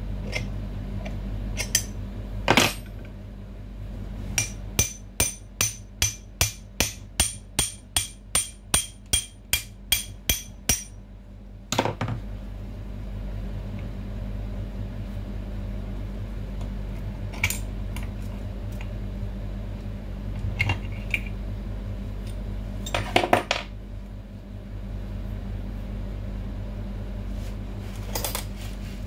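Hand tools working on a barber chair's hydraulic lift cylinder: scattered metallic clinks and knocks, and between about 5 and 11 seconds in a run of some fifteen evenly spaced metal clicks, two to three a second. A steady low hum runs underneath.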